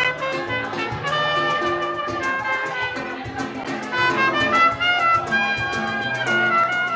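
Live flamenco-pop band playing an instrumental passage: a trumpet carries the melody over strummed flamenco guitar, upright double bass and a steady cajón beat.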